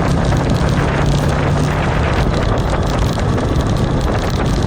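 A vehicle's engine running steadily on the move, with a low steady hum under heavy wind noise on the microphone.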